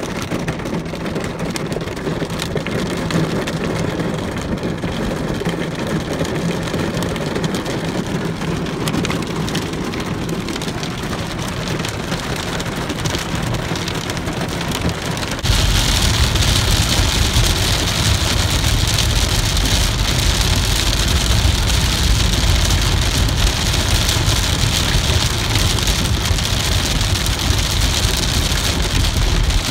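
Pea-sized hail and rain pelting a car, heard from inside the cabin as an even patter. About halfway through it turns suddenly louder and denser, a heavier hiss of hail and rain on the car over a low road rumble.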